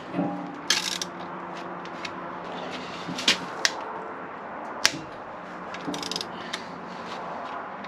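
A socket ratchet wrench working bolts in an engine block, with short runs of ratchet clicking and single sharp metal clinks of the tool against the block.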